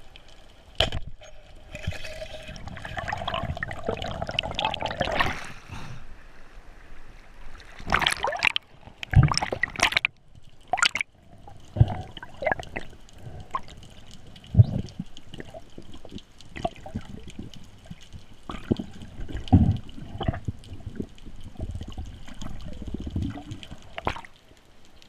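Water gurgling and sloshing close by, with irregular knocks and short splashy bursts, a longer stretch of rushing water a couple of seconds in.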